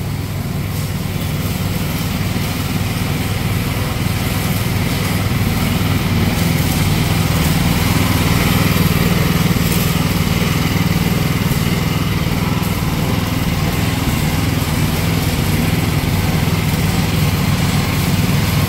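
Small engine of a Chinese mini excavator running steadily, getting a little louder over the first several seconds and then holding even.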